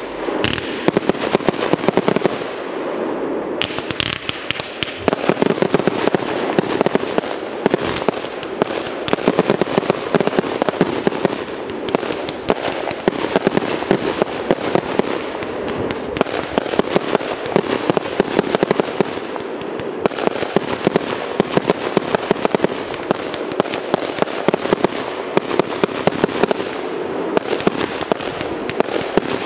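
Aerial fireworks bursting in rapid succession: a dense, unbroken run of bangs and crackles, many a second.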